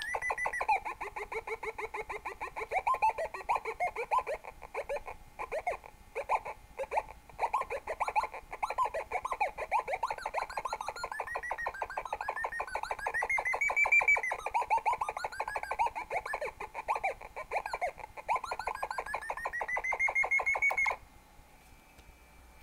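Electronic tone from a small loudspeaker driven by an Arduino, its pitch set by flashlight falling on a light sensor: a rapid warble of short buzzy beeps sliding up and down in pitch as the light moves. It cuts off suddenly near the end.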